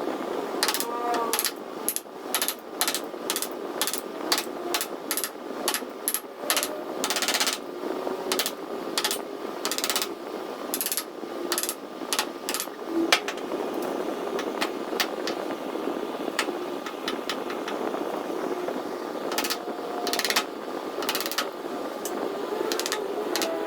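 Repeated sharp knocks of hand tools striking wood, about two a second at first, then fewer and more spaced out.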